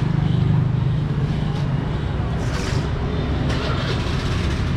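Steady low engine hum of a running vehicle, with a brief hiss about two and a half seconds in.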